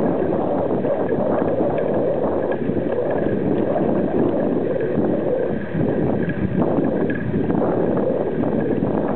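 Wind buffeting the microphone of a camera mounted on a moving bicycle, mixed with the rumble of the tyres on the paved path: a steady, loud rushing noise.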